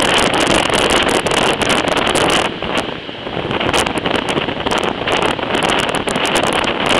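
Air rushing past the open window of a moving passenger train and buffeting the microphone, over the steady rumble of the carriage running on the track. The level drops briefly about two and a half seconds in, then comes back.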